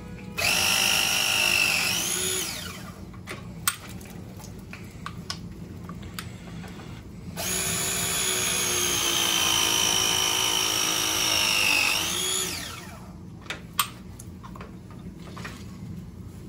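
Milwaukee M12 Force Logic battery-powered press tool crimping 1-inch copper press fittings. Its motor runs twice, briefly near the start and then for about five seconds in the middle, and each run ends in a short rising whine before it winds down. A few sharp clicks come between the runs.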